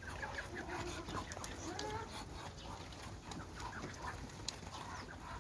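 Mixed backyard poultry flock of chickens, ducks and geese calling, with many short overlapping calls. Chicken clucking is the most prominent.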